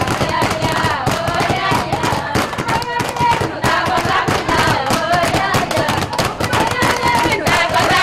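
Cape Verdean batuque with the chabeta beat: a group of women sing together over fast, dense handclapping and slapping.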